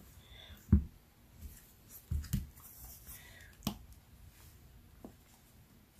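A few soft knocks and clicks of hands handling craft supplies on a tabletop, among them a plastic ink pad case being picked up and handled; the loudest knock comes about three-quarters of a second in.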